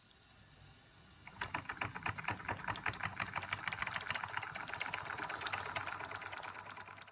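Antique Georges Carette Model 175 twin oscillating-cylinder toy steam engine running fast under steam, a quick even ticking over a steady hiss. It grows much louder about a second in.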